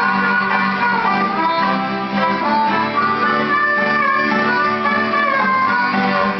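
Old-time string band playing without singing: fiddle melody over acoustic guitar and upright bass.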